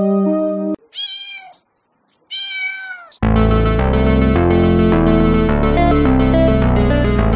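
A cat meows twice, two short separate meows with a pause between them. Sustained keyboard chords stop just before the first meow, and loud music with a steady beat starts about three seconds in.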